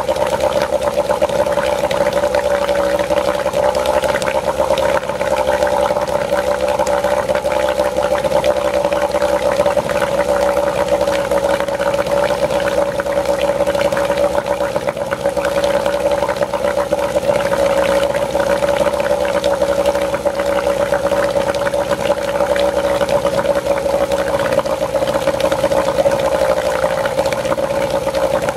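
1991 Evinrude 3 hp twin two-stroke outboard motor running steadily, its propeller churning the water of a test tub.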